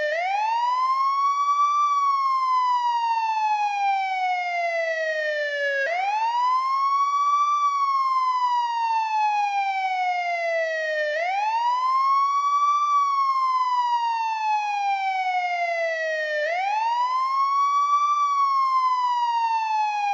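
Old-model NYPD police siren on its wail setting: a single tone that climbs quickly, then slides slowly back down, repeating about every five seconds, nearly four times here.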